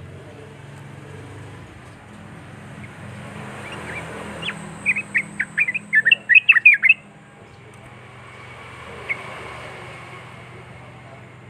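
Yellow-vented bulbul (trucukan) calling: a fast, loud run of sharp chattering notes lasting about two seconds midway, then one short note, over a steady background hum.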